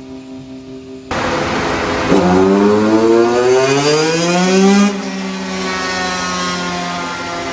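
Motorcycle engine with a new titanium aftermarket exhaust running on a dyno, making one smooth full-throttle pull: the pitch climbs steadily for about three seconds, then drops off sharply as the throttle closes and it runs on at a lower steady note. Background music plays briefly before the engine cuts in.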